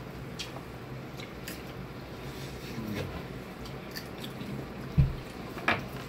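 Close-up eating sounds: chewing, with small clicks and cracks as seafood is picked apart by hand. A dull thump comes about five seconds in, followed by a sharper click.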